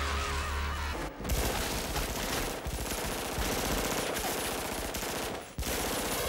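Film soundtrack of a shootout: rapid, sustained pistol gunfire with many shots a second, starting about a second in after a low steady hum, breaking off briefly near the end and then resuming.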